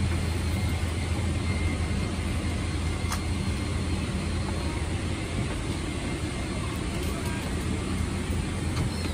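Steady cabin noise inside a Boeing 777-300ER taxiing after landing: a constant low hum and rumble from the engines and air conditioning, with one faint click about three seconds in.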